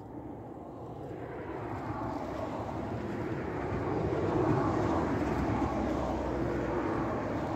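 Renfe Class 446 electric commuter train approaching along the line: its running noise grows steadily louder for about four seconds, then holds level.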